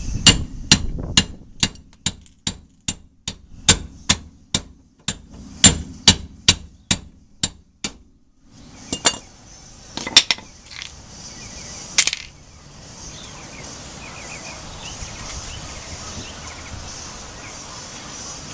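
Hammer blows ringing on steel, about two or three a second for some seven seconds, then a pause and three more single blows, knocking loose the rear wheel hub of a 1993 Honda Civic.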